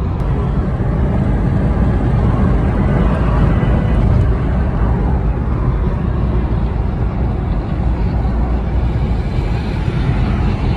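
Skoda Superb with a 1.8 TSI turbocharged four-cylinder petrol engine being driven on a trial run: steady engine and road noise, strongest in the low end.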